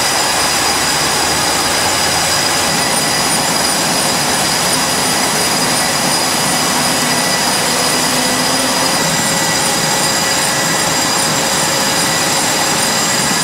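Jet engines running on an aircraft carrier's flight deck: a loud, steady roar with a high, steady whine.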